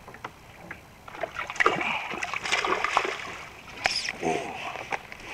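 Water splashing and sloshing at a kayak while a fish is fought on a fly rod, with scattered sharp knocks; it is loudest for about two seconds from a second in.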